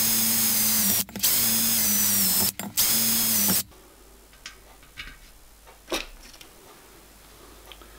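Electric hand drill running, drilling small holes into a copper boiler backplate for 7 BA screws, with two brief pauses. The drill stops about three and a half seconds in, followed by a few faint clicks.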